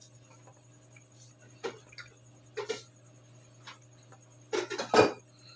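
Irregular small clicks and taps of hands handling speaker wires and small parts, with a cluster of louder knocks about four and a half seconds in, over a steady low hum.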